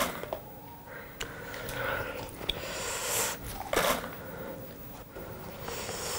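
Breathing and mouth noises close to the microphone, with a few sharp clicks, from a man working at a dried maize cob held to his lips.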